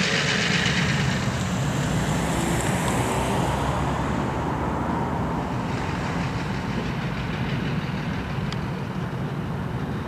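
Diesel yard switcher locomotive's engine running loud and steady under throttle as it begins to move, its black exhaust smoke the sign of the engine loading up. A hiss sounds in the first second.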